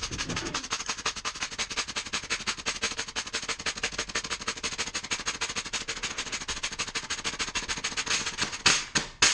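Rapid, even mechanical clicking, about ten clicks a second, with a few louder knocks near the end before it stops.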